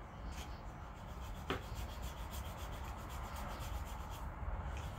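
Rubbing and scratching close to the microphone: a rapid run of faint scratches over a low rumble, with one sharper tick about a second and a half in.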